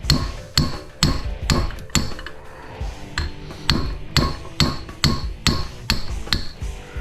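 Repeated hammer blows on metal, about two a second with a short pause about two and a half seconds in, each strike ringing: a hammer driving a punch against a large electric motor during teardown.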